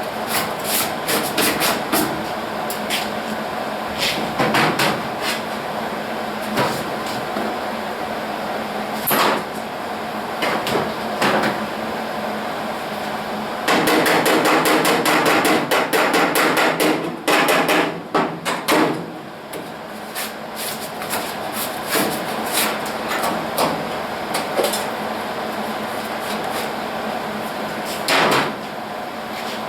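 Hobart Handler 140 110-volt MIG welder arc crackling in a string of short tack-weld bursts, with one longer steady burst of about three seconds midway, run on 75/25 argon–CO2 shielding gas.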